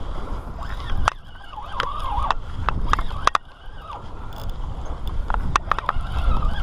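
Spinning reel's drag screaming as a hooked shark pulls line off, the whine wavering up and down in pitch in several runs. Scattered sharp clicks and knocks from handling the rod and reel over a steady low rumble.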